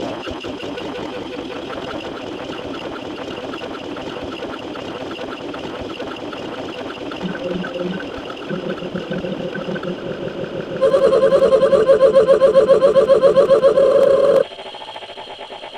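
Layered sound effects: a steady buzzing drone made of several held tones with a fast flutter. About eleven seconds in, a louder, rapidly pulsing tone joins, then cuts off suddenly about three and a half seconds later.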